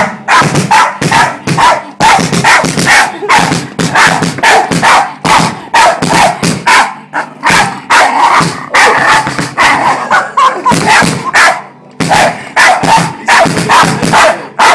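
A dog barking nonstop, about three barks a second, snapping at a bass drum's front head, with the kick drum being played underneath.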